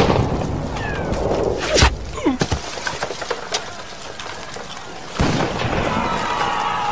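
Film battle sound: the rumble of a big explosion dying away, then another sharp blast about two seconds in, scattered gunshot cracks, and a fresh burst of noisy battle about five seconds in.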